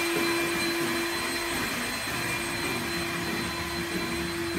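Electric mixer running steadily while beating egg whites to stiff peaks: a constant, even motor whir.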